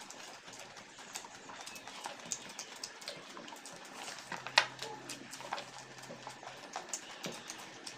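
Eating sounds from two people eating rice by hand: wet chewing and lip-smacking, with fingers mixing rice on plates, as irregular small clicks and smacks. One sharper click stands out about halfway through.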